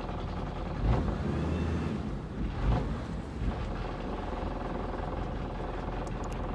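Boat engine running steadily with a low hum, with two brief louder thumps about one second and almost three seconds in.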